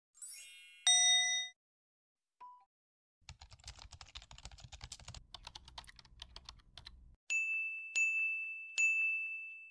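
Edited-in sound effects: a short sparkly chime and a bright ding about a second in, then about four seconds of rapid keyboard-typing clicks, then three ringing dings of the same pitch, each less than a second apart.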